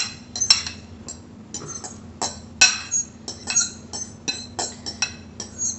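A metal fork scraping and tapping against a ceramic bowl in quick, irregular clicks as chopped vegetables are pushed off it into another bowl.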